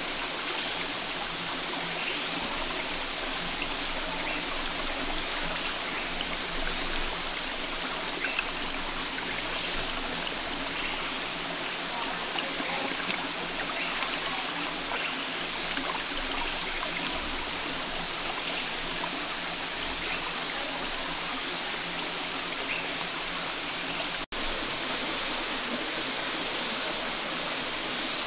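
Steady rush of a shallow stream flowing over rocks, with light splashing as hands wash something in the water. The sound cuts out for an instant near the end, then the steady rush carries on.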